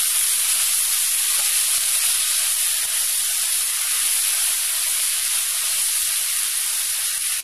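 Masala of soya chunks, cauliflower and carrot sizzling steadily in hot oil in a pan as curd is stirred into it with a wooden spatula. The sizzle cuts off suddenly at the end.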